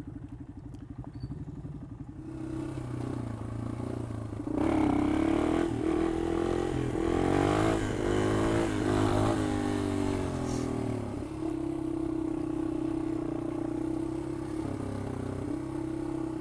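Yamaha XT225's single-cylinder four-stroke engine running at low speed. From about four seconds in it gets louder, its pitch climbing and dropping as it revs, and after about eleven seconds it settles to a steady note.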